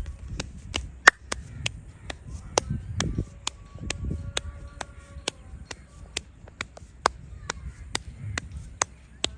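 Percussive head massage: the masseur's hands strike the head in a quick, even rhythm of sharp slaps, about three a second.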